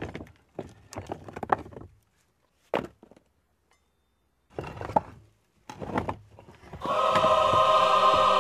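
Scattered knocks and thuds, some in quick clusters and some single, with silent gaps between them. About seven seconds in, louder choral music with sustained voices begins and keeps going.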